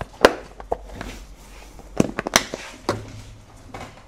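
Handling noise at a repair bench: about half a dozen sharp clicks and taps as small tools and items are picked up and set down. There is a quick run of them about two seconds in, and the loudest comes first.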